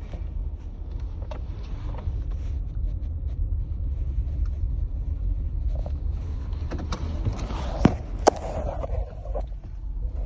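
Steady low rumble of a car, heard from inside the cabin, with faint rustling and ticks. Two sharp clicks come close together about eight seconds in.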